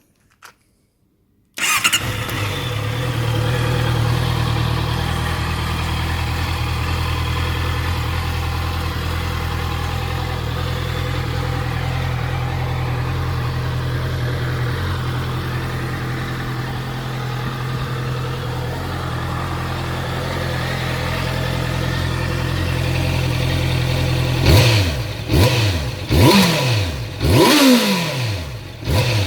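2018 Honda CB650's inline-four motorcycle engine starting up about a second and a half in, then idling steadily through its exhaust. Near the end it is revved sharply in a series of quick blips, each falling back toward idle.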